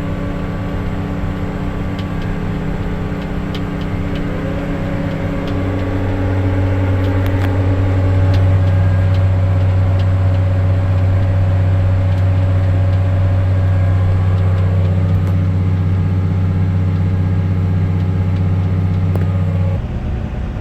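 Farm crop sprayer's engine running steadily under way, with a slight rise in pitch about four seconds in. It gets louder a second or two later and drops back just before the end.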